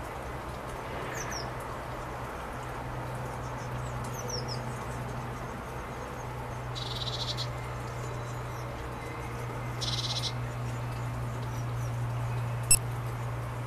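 Small birds calling: a few thin, high, gliding calls and two short rasping churrs, over a steady low hum. A single sharp click sounds near the end.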